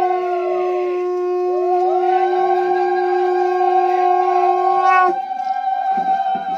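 Conch shells (shankha) blown together in long, loud, steady notes at two different pitches. The lower conch holds its note and cuts off about five seconds in. The higher one sags and swoops in pitch early on, then settles and carries on. This is the auspicious conch-blowing that marks the groom being brought to the wedding altar.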